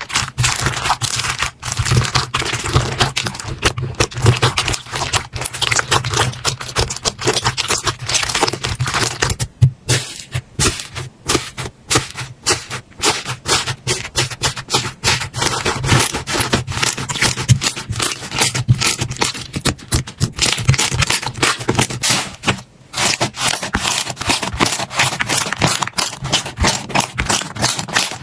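Slime being squeezed and poked by hand, making dense, rapid crackling and clicking with wet scraping, with brief lulls twice.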